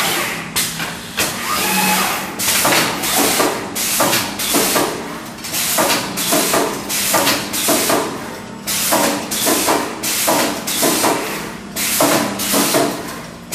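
Two-table semiautomatic wire welding machine working through its cycle: repeated short bursts of hiss with knocks, about one to two a second, over a faint steady hum.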